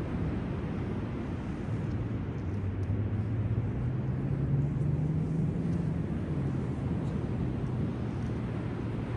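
A low engine hum that comes in about two seconds in, rises in pitch through the middle and falls back, over a steady wash of surf and wind noise.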